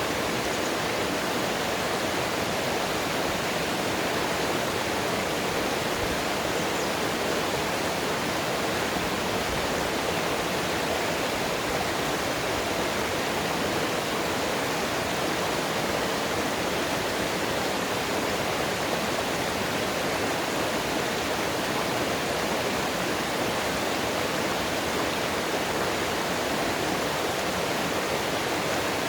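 Rushing water of a mountain stream, a steady, even rush with nothing else standing out.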